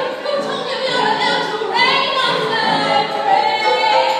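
A woman singing a Broadway show tune live, with a long held note through the second half.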